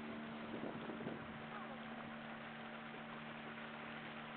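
Outboard engine of a small river speedboat running at a steady pitch, with water and wind rushing past the hull; a second, lower engine tone comes in about a second in.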